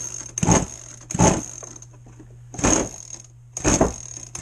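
Zenoah two-stroke RC boat engine being pull-started: four short cranking pulls without firing, about a second apart. The engine is badly flooded and its spark plug is threaded in only partway, so fuel is being vented out at each pull.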